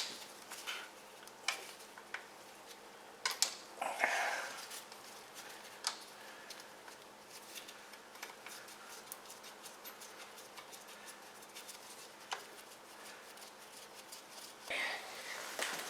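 Scattered light clicks, taps and a short scrape of hand tools and metal engine parts being handled, with quiet stretches between.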